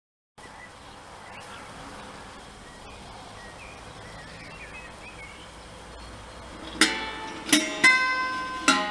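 Guitar strings on a kinetic sculpture plucked by its mechanism: after faint steady background noise, four sharp plucked notes ring out near the end, the last three in quick, uneven succession.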